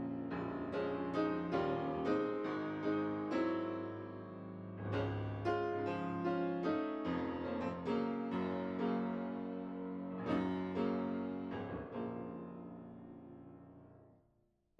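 Solo piano music, a slow melody of single struck notes and chords that die away, fading out near the end.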